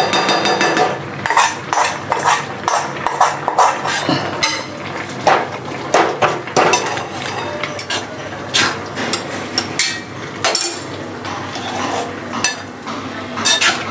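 Perforated metal spatula stirring a thick mix of grated carrots and khoa in a metal pan, knocking and scraping against the pan at irregular intervals.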